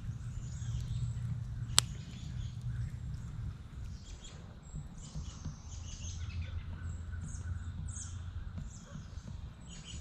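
Songbirds chirping in the woods over a low steady rumble, with one sharp pop from the campfire a little under two seconds in.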